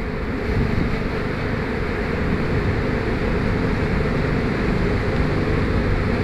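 Honeybees buzzing around an opened hive: a steady, dense hum.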